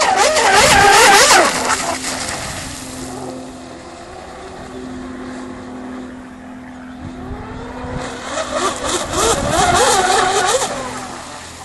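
Twin electric motors of a 40-inch 12S radio-controlled drag hydroplane running flat out across the water, with a wavering pitch. It is loudest in the first two seconds, fades, then builds again from about seven seconds in to a second peak near ten seconds as the boat makes another pass.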